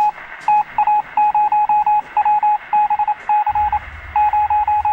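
Morse code: one high beep keyed on and off in quick runs of short and longer pulses, with a low hum joining about three and a half seconds in.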